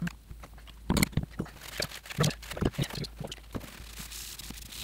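Light clicks and knocks of small metal lathe parts being handled and set down, a few to the second. Near the end this gives way to a steady rubbing hiss as a paper towel wipes the lathe bed.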